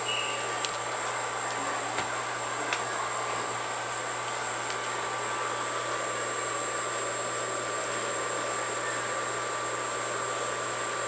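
A steady mechanical hum and hiss with a few faint clicks in the first three seconds.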